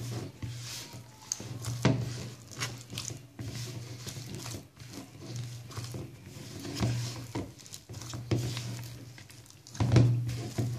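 Hands squishing and slapping soft, sticky pizza dough against the sides of a plastic bowl in irregular strokes as it is mixed together with a wet hand.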